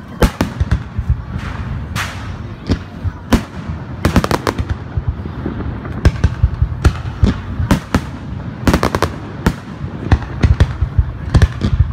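Aerial firework shells bursting one after another during a fireworks display: a steady run of sharp bangs and cracks, some in quick clusters, over a low rumble.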